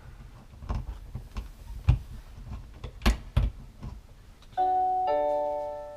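A few knocks and clicks of handling, then, a little past halfway, the Nest Protect smoke and CO detector's power-up chime: two bright notes about half a second apart, fading slowly.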